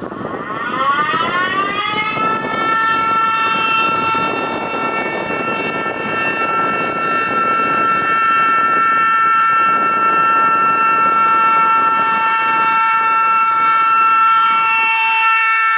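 Civil-defence warning siren spinning up, its pitch rising over about two seconds, then holding a steady, loud tone. This is the start of the 'Bevölkerungswarnung' public-warning signal, sounded as a test.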